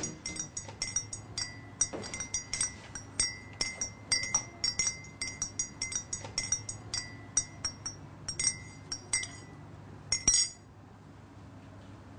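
A teaspoon stirring in a mug, clinking against its sides in quick, uneven strokes, about three a second, with a short bright ring after each clink; the stirring stops about ten seconds in.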